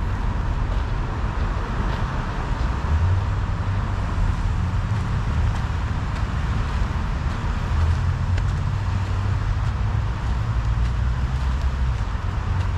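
Steady road traffic noise: a continuous hiss of passing cars over a low rumble.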